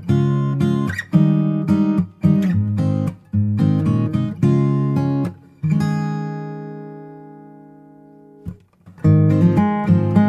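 Background music of acoustic guitar strumming chords, with one chord left ringing and fading for about three seconds midway before the strumming picks up again.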